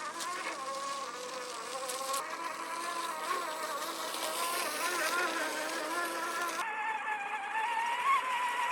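Electric motor and gearbox of a 1/10-scale RC truck whining, the pitch rising and falling with the throttle. About two-thirds of the way through, the background hiss drops away while the whine goes on.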